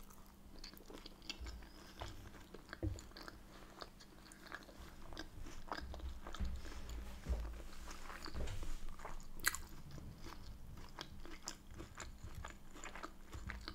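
Close-miked chewing of a mouthful of Yorkshire pudding, soft and steady with many small mouth clicks and light crunches.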